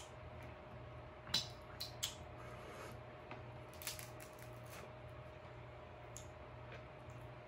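King crab leg shell being handled as the meat is pulled out: a few sharp clicks and cracks of shell, bunched around one and a half to two seconds in and again near four seconds, with smaller ticks after.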